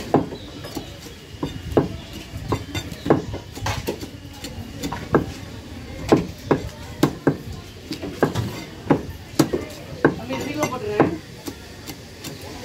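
A large curved fishmonger's knife chopping a fish into pieces on a wooden log chopping block, with sharp, irregular thuds about one or two a second.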